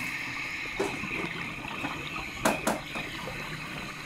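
Scuba divers' exhaled air bubbling from their regulators, picked up by a camera underwater: a steady crackling, bubbling wash with two short, louder bubble bursts a little past halfway.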